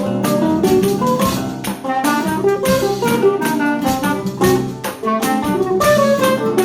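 Choro ensemble playing an instrumental piece at a lively tempo: clarinet and bandolim carry quick melodic runs over six- and seven-string acoustic guitars and tuba bass, with pandeiro and drum kit keeping the rhythm.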